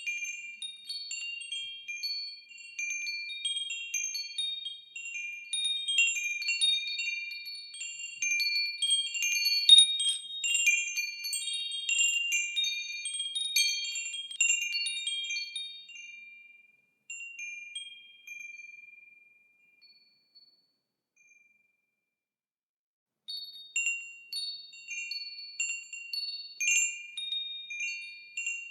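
Wind chimes ringing, many clear high tones struck in quick, irregular clusters and overlapping as they ring on. They thin out and die away to near silence for a few seconds past the middle, then start chiming again near the end.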